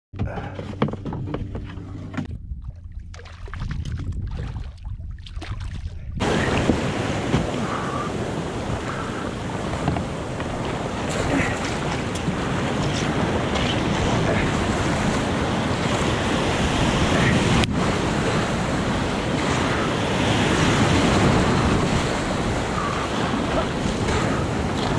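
Breaking surf and foaming white water washing around a kayak as it is paddled out through the waves, with wind buffeting the microphone. This dense rushing noise cuts in abruptly about six seconds in, after a quieter opening with a steady low hum.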